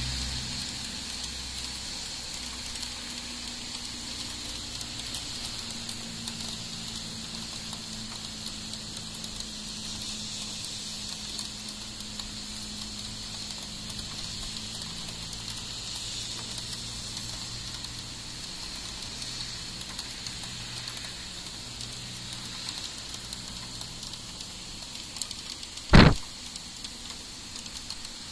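Heavy rain pouring steadily, a continuous even hiss, with a low drone under it for the first two thirds. Near the end there is a single sharp knock, the loudest sound.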